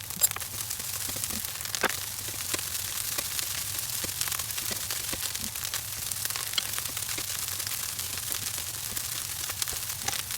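Fried rice sizzling and crackling in a hot wok, a steady hiss with many small pops throughout.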